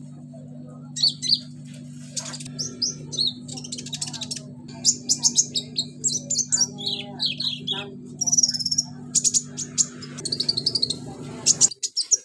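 Caged kolibri ninja (purple-throated sunbird) singing: a busy, varied run of quick high chirps, twitters and trills, a song keepers fill with mimicked calls of other birds and insects. A steady low hum runs beneath and cuts off just before the end.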